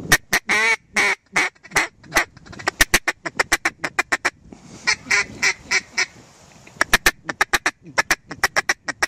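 Mallard duck call blown in loud runs of sharp hen quacks: one drawn-out quack at the start, then fast strings of quacks broken by two short pauses.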